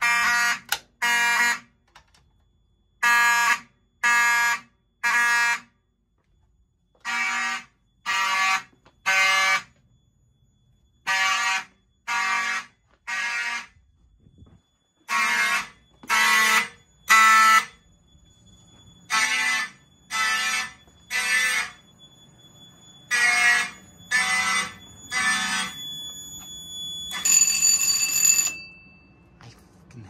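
Several mechanical fire alarm horns, including a Simplex 4051 and a Wheelock 34-24, sounding together in the code 3 temporal pattern: three short blasts, a pause, repeating about every four seconds. The horns stop after about 25 seconds, and a brief buzz with a steady high tone follows.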